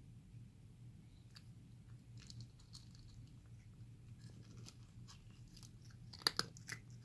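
Cat chewing food in small, irregular clicks, with two sharper, louder clicks about six seconds in.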